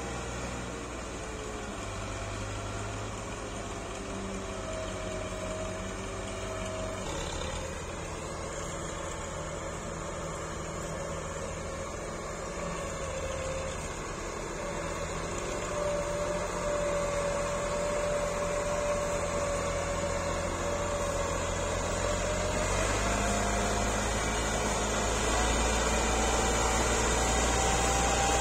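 Diesel tractor engines running under load, with a whine that wavers in pitch. Over the last several seconds a Massey Ferguson 260 pulling a loaded soil trolley comes closer and its engine grows louder.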